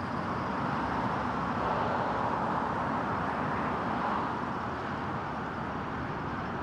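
Steady road traffic: cars driving past on a busy road, an even hum of tyres and engines that swells slightly a couple of seconds in.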